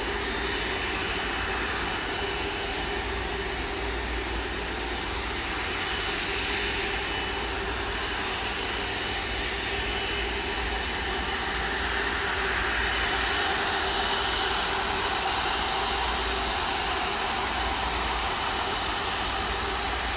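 Airbus A330-300 twin jet engines running at low taxi thrust as the airliner rolls slowly onto the runway to line up: a steady jet whine and rumble that swells slightly about halfway through.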